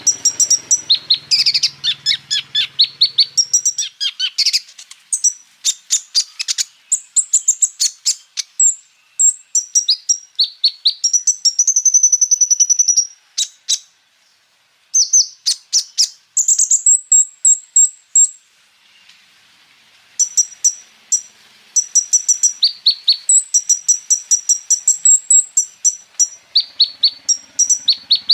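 A kolibri ninja sunbird sings a fast, high-pitched twittering song of rapid runs and trills, its full song packed with phrases mimicked from other birds. It breaks off briefly about halfway through, and again a few seconds later.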